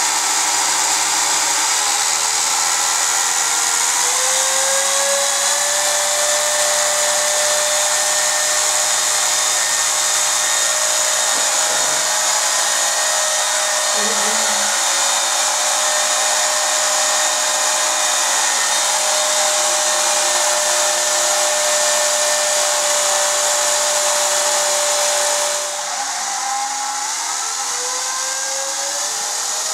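WLtoys V262 quadcopter's motors and propellers spinning at low throttle while it stays on the floor: a steady whine that rises in pitch a few seconds in. Near the end it drops in level, then the pitch falls and climbs again.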